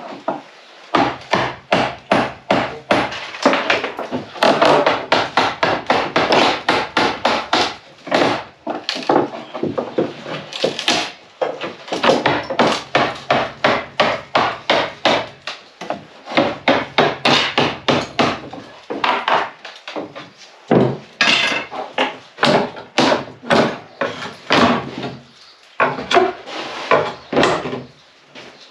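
Wooden laths being pried and torn off an old lath-and-plaster timber stud wall: a dense run of wooden cracks, knocks and splintering, several a second, with brief pauses.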